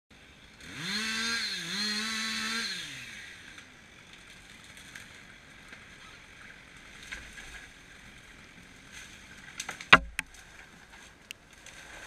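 Chainsaw revved at full throttle for about two seconds, with a brief dip, then dropping back. About ten seconds in come a few sharp snaps and one loud crack, with a few more cracks after, as the felled tree breaks away and its crown crashes down.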